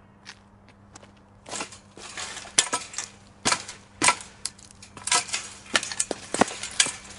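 Metal fence rattling and clanking as it is climbed: a quick, uneven run of sharp metallic jolts and rattles that starts about a second and a half in, after a few light clicks.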